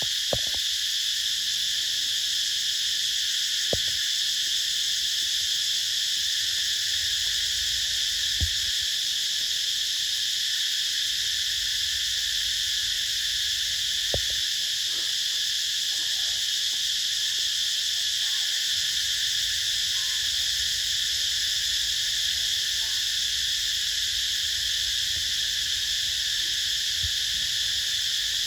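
A steady, high-pitched chorus of calling animals, with a few faint knocks.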